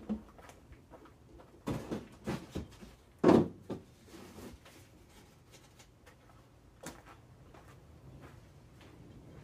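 A cooler knocking as it is carried and set down on a garage bench: a few short knocks, then one louder thump about three seconds in. A single sharp click comes near seven seconds.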